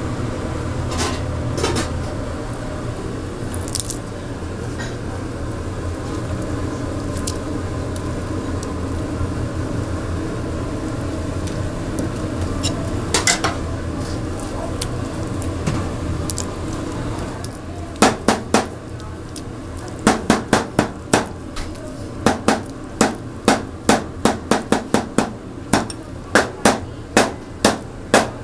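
Steady kitchen hum with a few scattered clicks, then from about 18 seconds in a run of sharp, rhythmic chopping knocks on a cutting board, about two a second.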